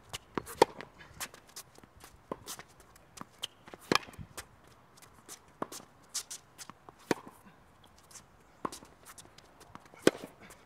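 Tennis rally on a hard court: sharp pops of the racket strings striking the ball, the loudest roughly every three seconds, with fainter ball bounces and quick footsteps on the court between them.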